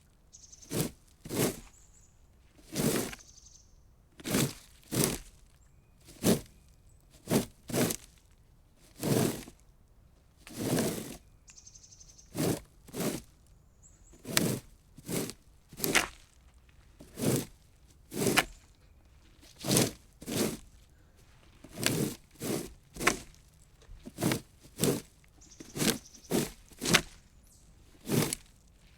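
Plastic rake dragged in repeated short scraping strokes, roughly one a second at an uneven pace, some strokes drawn out longer than others.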